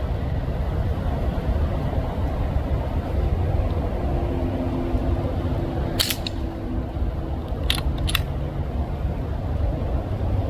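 Brocock Atomic XR pellet air rifle firing once, a sharp crack about six seconds in, followed by two quick clicks about a second and a half later, over a steady low rumble.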